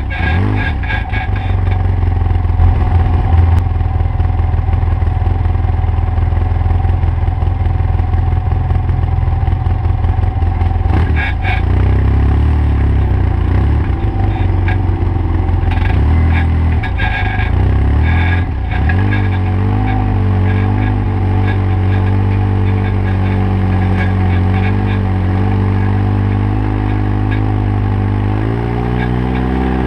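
Side-by-side UTV engines running at low trail speed. The engine note rises and falls with the throttle, stepping up about two-thirds of the way through and swelling again near the end, with a few knocks as the vehicles go over rocks.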